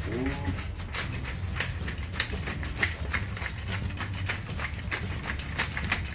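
Hand-twisted pepper mill grinding black peppercorns, a quick run of sharp clicks, several a second, over a low steady hum.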